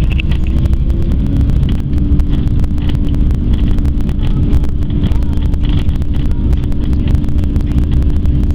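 Cabin noise inside an Airbus A340-300 airliner: a loud, steady low rumble of the four CFM56 engines and airframe with a steady hum, over frequent light rattles and creaks of the cabin fuselage.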